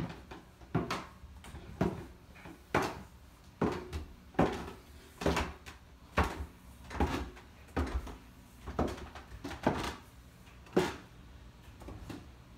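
Footsteps going down wooden stairs: a dozen even thuds, about one a second.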